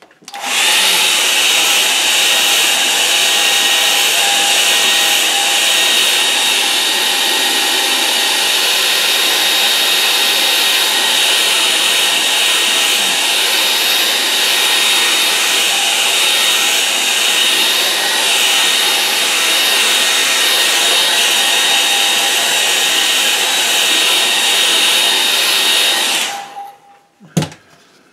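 Hair dryer running steadily on wet watercolour paint, a loud rushing blow with a thin high whine in it. It switches off about 26 seconds in, and a couple of short knocks follow.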